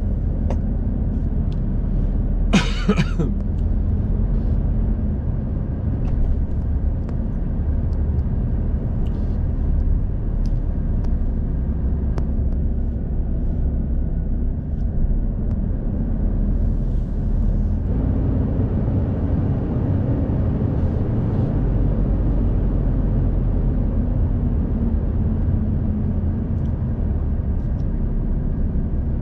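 Lorry's diesel engine running steadily at low revs as the truck pulls away and manoeuvres, its note shifting about eighteen seconds in. A short loud burst of noise comes about three seconds in.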